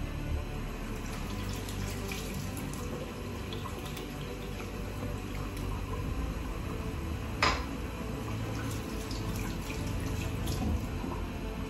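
Kitchen tap running into a stainless steel sink while hands are washed, with a sharp click about halfway through.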